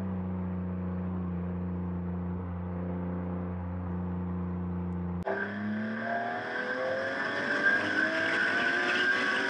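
Car engine cruising at an even, steady pitch, heard from inside the BMW M3's cabin. About five seconds in there is an abrupt cut to a brighter, more open car engine note from an exterior camera, accelerating with its pitch climbing steadily.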